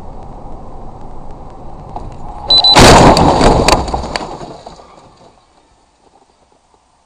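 Car crash heard from inside the car. Steady road noise, then about two and a half seconds in a sudden loud crash lasting about a second and a half. It dies away to near silence.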